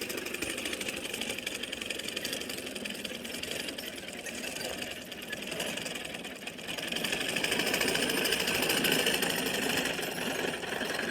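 Horse-drawn sickle bar mower cutting, its reciprocating knife clattering rapidly and steadily; louder from about seven seconds in.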